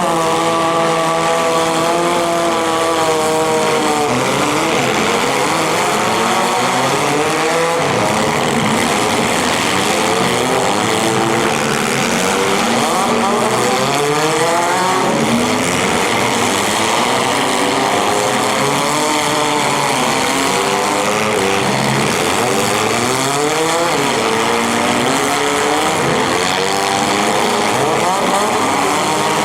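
Several compact cars' engines revving hard in a demolition derby heat, their pitches rising and falling over one another. One engine holds a steady high rev for the first few seconds before the pitches scatter.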